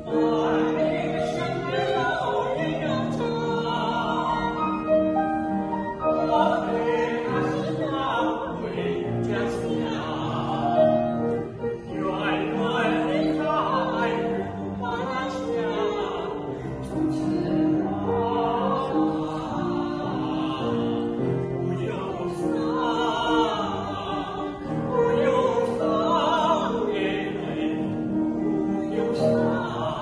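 A woman and a man singing a Chinese film song together as a duet in an operatic, classical vocal style, with long held notes.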